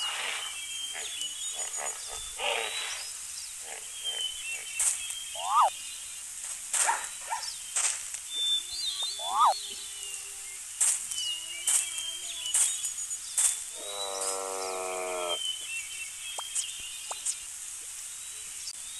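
Animal call sound effects: a string of short calls and grunts over a steady bed of birdsong chirps, with two quick rising squeals and one longer, wavering call about three-quarters of the way through.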